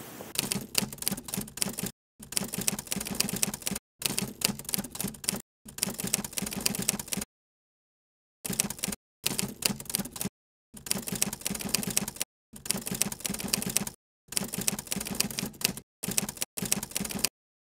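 Typewriter keys clacking in quick runs of a second or two, about a dozen runs split by short dead-silent pauses, with a longer pause about seven seconds in: a typing sound effect.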